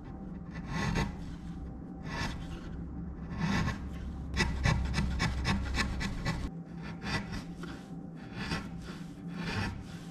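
A hand tool scraping along the edge of a hardwood board in repeated short strokes, coming in bursts with brief pauses between them.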